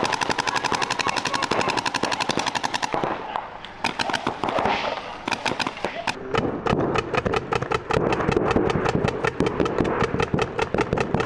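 Paintball markers firing rapid strings of shots, around ten a second, with a break about three seconds in before the firing picks up again and runs on.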